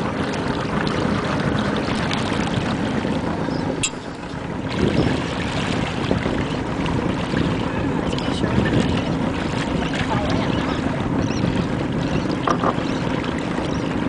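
Steady wind noise buffeting the microphone, mixed with water rushing and splashing around a small motorboat, with a brief lull about four seconds in.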